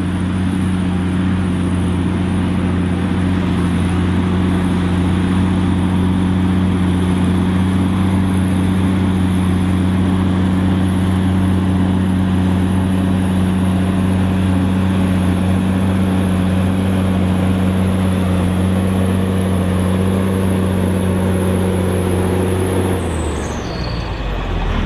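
Claas Xerion 3800 tractor engine running at a steady speed, with a steady high whine above the engine note. About two seconds before the end the engine note and the whine drop away.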